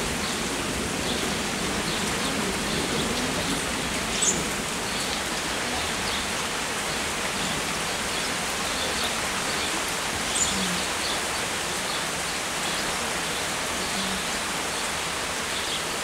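Steady rain falling, an even hiss, with two sharper taps standing out about four and ten seconds in.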